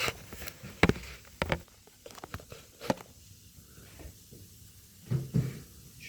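A small padlock and metal lock-picking tools being handled: a few sharp, separate clicks and taps, then a soft low double thump near the end.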